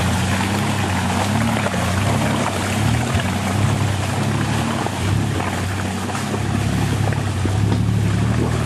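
Ford Ranger mud truck's engine pulling through deep mud, its pitch rising and falling as the throttle is worked, over a steady wash of churning mud and water from the tyres.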